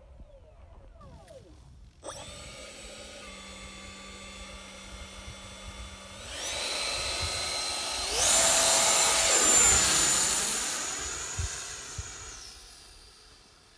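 The 64 mm electric ducted fan of an E-flite F-15 Eagle model jet spools up in steps to a loud, high, turbine-like whine at full throttle for the hand launch. The whine then fades as the jet flies off, and drops in pitch near the end as the throttle comes back.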